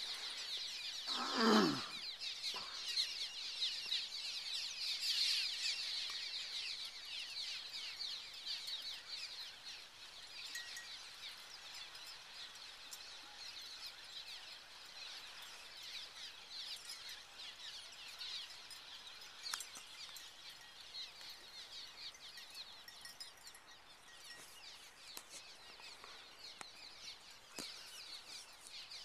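A large flock of swallows twittering as they sweep about, a dense high-pitched chatter that is loudest in the first ten seconds and thins out after that. About a second and a half in, a short sound falling steeply in pitch cuts through.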